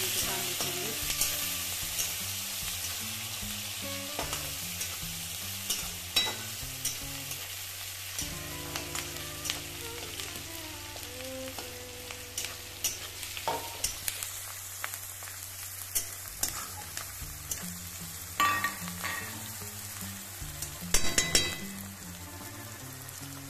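Onions sizzling in hot oil in a kadhai, over cumin and mustard seeds already tempered in it, with a spatula clacking and scraping against the pan now and then. The sizzle is strongest at first and eases about halfway through, and there is a brisk run of spatula knocks near the end.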